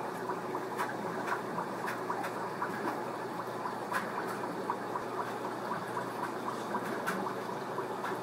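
Steady bubbling and trickling of water in an aquarium, with many small pops.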